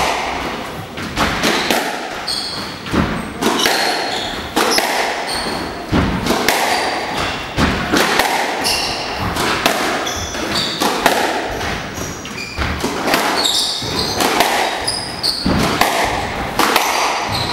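A squash rally: the ball cracks off rackets and walls about once a second, in the echo of a hall, with short high squeaks of shoes on the hardwood court floor between the shots.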